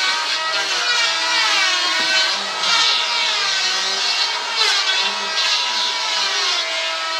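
Electric power tool cutting wood. Its motor whine dips in pitch several times as it bites into the wood, with a burst of hissy cutting noise each time, then recovers.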